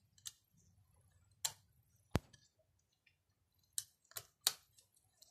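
Light, irregular clicks of a thin shutter plate and blade parts being pressed into place in a Nikon D7000's shutter box by gloved fingers, about six in all, the sharpest a little after two seconds in.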